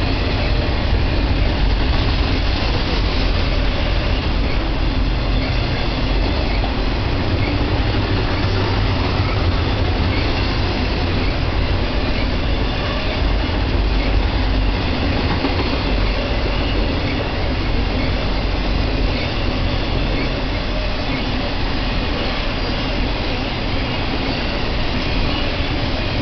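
BNSF intermodal freight train's cars, loaded with trailers and containers, rolling steadily past on the track: a continuous noise of steel wheels on the rails.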